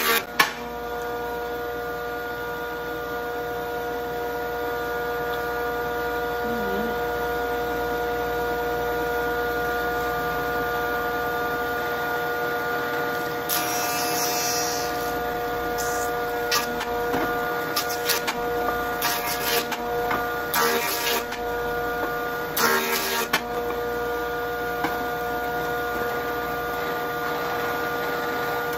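Jointer running with a steady whine, its cutterhead biting into a log in a string of short, harsh bursts from about halfway through, as the log is pushed across to flatten one face.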